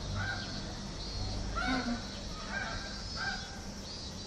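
Short animal calls, about five in four seconds, each brief and level in pitch, over a steady low background hum.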